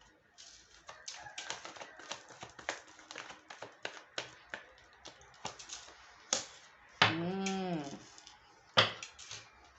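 Tarot cards being handled and shuffled on a table: a quick, irregular run of light clicks and snaps, with a couple of sharper ones. About seven seconds in comes a short hummed 'hmm' that rises and falls in pitch.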